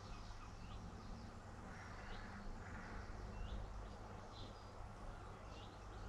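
Short high bird calls, repeated roughly once a second, over a steady low rumble.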